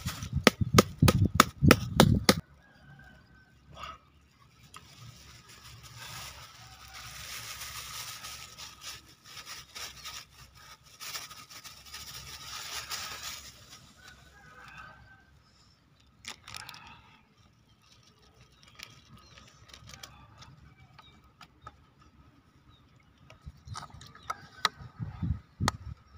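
Hand handling noises while food is mixed on the ground: a quick run of sharp knocks at the start, then soft rustling and scattered light clicks of plastic and bottles.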